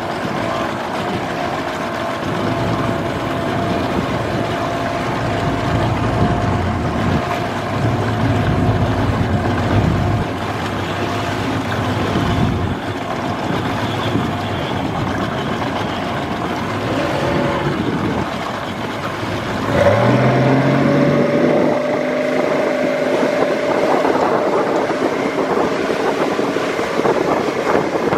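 Duck boat's motor running under way across open water, with steady wind and water rush. About twenty seconds in, the engine note steps up and climbs, louder than before.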